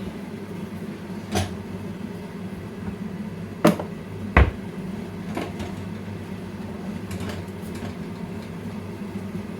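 Roti-making handling noise: a few sharp knocks and clicks of dough and utensils on a board or griddle, with one heavier thump about four and a half seconds in, over a steady low hum.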